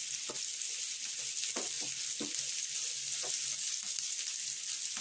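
Half-boiled thambakaya pieces frying in oil in a kadai, with a steady sizzle and a handful of short scrapes and knocks of a spoon stirring them.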